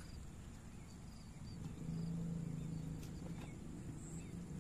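Quiet outdoor ambience over flooded rice paddies: a few faint, short bird chirps over a low steady hum that comes in about one and a half seconds in, with a single soft click near the middle.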